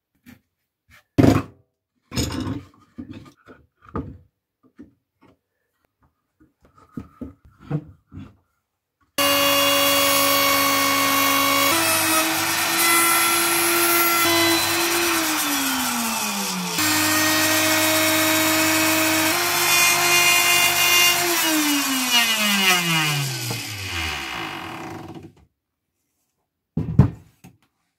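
Handheld electric plunge router running at full speed with a steady high whine while routing a handle slot in a wooden template. It winds down with a falling pitch, starts again at full speed, then is switched off and spins down to a stop over about four seconds. Before the router starts, a few light knocks and clicks of wood being handled.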